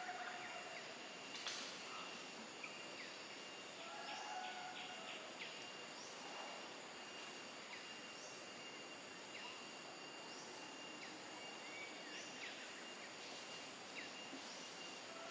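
Outdoor background ambience: a steady high insect drone with scattered short chirps and calls over a faint hiss.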